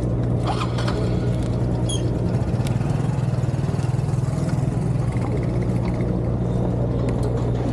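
Harley-Davidson motorcycle engine running steadily at low speed.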